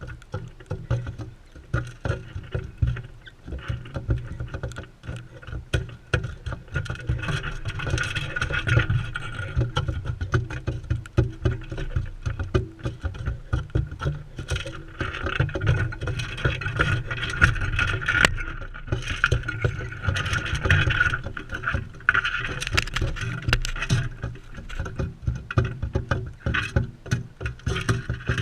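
Birds feeding close to the microphone: a dense, irregular run of pecking clicks and knocks on seed and the feeder, over a low rumble.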